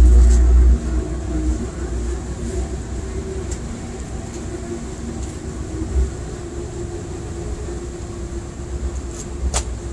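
Tugboat's diesel engines running with a steady low hum and rumble, louder for the first second or so. A single sharp click sounds near the end.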